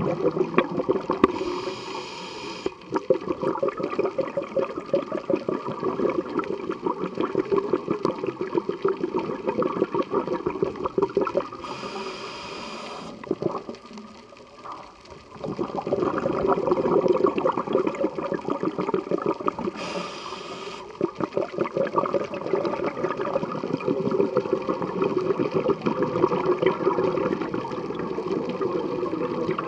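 Scuba diver breathing through a regulator underwater: three short hissing inhalations several seconds apart, each followed by a long stretch of exhaled bubbles bubbling and gurgling past the housing.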